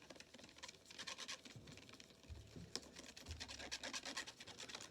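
Faint, irregular scraping and ticking of a utensil stirring a thin slime mixture against its container, with a few soft low thumps.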